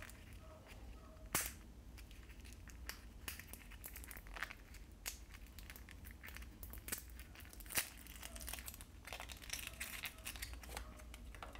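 Thin clear plastic wrapper crinkling and crackling faintly as it is peeled off a small squishy toy figurine, with a couple of louder sharp snaps about a second and a half in and near eight seconds.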